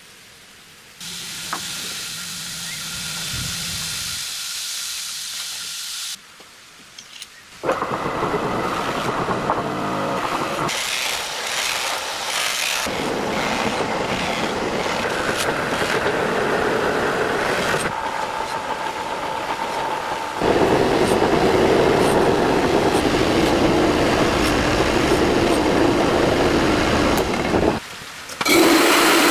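Electric grinder running and grinding the steel of a forged knife blade in several separate passes. It starts about a second in, stops briefly around six seconds, resumes, and gets louder from about twenty seconds in.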